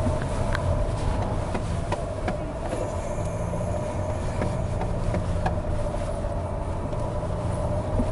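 Jeep Renegade Trailhawk's 2.0-litre 170 PS diesel pulling at low speed over a rough dirt track, heard from inside the cabin: a low rumble with a steady drone, and scattered light knocks and rattles from the bumpy ground.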